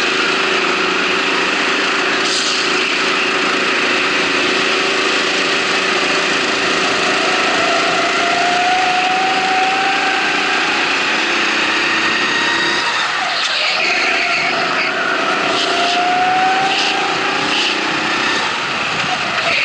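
Race kart's motor running at speed on the track, its pitch rising along the straights and dropping briefly about two-thirds of the way through.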